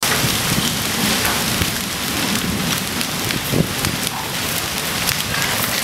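Hail and heavy rain pelting wet pavement: a dense, steady hiss of rain with many sharp ticks of hailstones striking, and one louder thump about three and a half seconds in.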